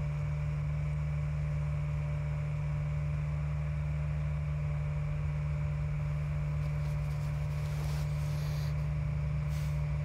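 Steady low drone of a truck-mounted hydraulic access platform's engine running. Faint hissing comes and goes near the end.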